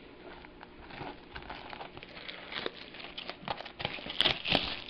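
Plastic shrink wrap on a sealed box of trading cards crinkling and tearing as it is pulled off by hand. It comes as a run of small irregular crackles, with a louder burst of crinkling about four seconds in.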